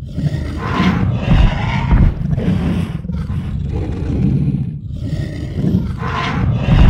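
Sound effect of the Google 3D augmented-reality Ankylosaurus: several low roars one after another.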